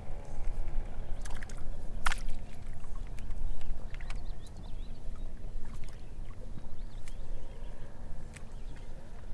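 Low rumbling noise on a small fishing boat out on the water, rising and falling in loudness, with a few sharp clicks, the loudest about two seconds in.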